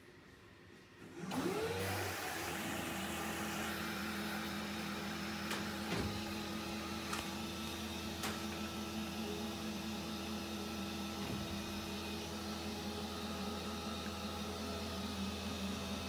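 Fisher & Paykel DD60DCW7 DishDrawer dishwasher's pump motor starting about a second in, rising quickly in pitch, then running steadily with a rushing hiss and a few light clicks.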